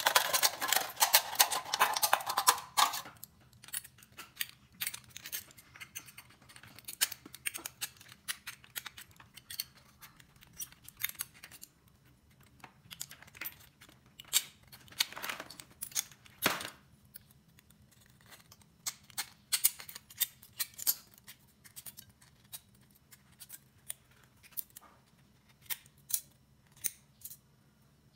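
Scissors cutting through a thin aluminium drink can: a dense run of rapid crackling cuts for the first three seconds, then scattered snips and clicks of the blades on the metal.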